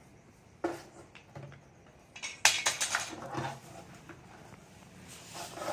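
A few sharp clattering knocks of hard objects being handled, the loudest about two and a half seconds in, with a snake's hiss starting faintly near the end.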